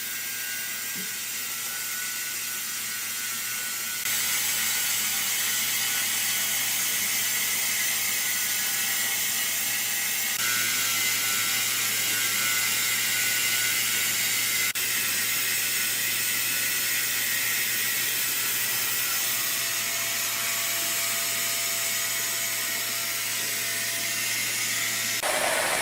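Woodworking plant machinery running steadily: a low hum under a bright, hissing mechanical whir. The sound changes abruptly a few times, as at cuts between shots.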